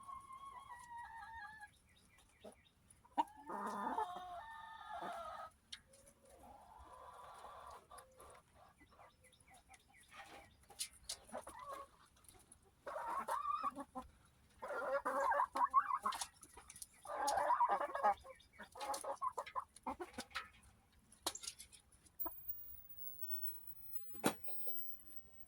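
Hens clucking and squawking while they feed, in several calls of a second or two each, with many short sharp taps between them, typical of pecking at the food.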